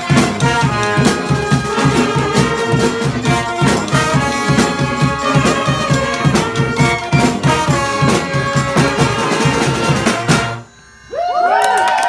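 Street brass band of saxophones, trumpets, sousaphone and drums playing a tune over a steady drumbeat, stopping sharply on a final note about ten and a half seconds in. The crowd then starts whooping and cheering.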